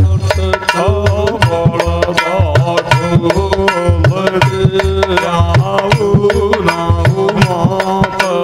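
Instrumental break in a live folk devotional song: a hand drum keeps a steady beat under a wavering melodic line, with sharp clicking percussion on the beats.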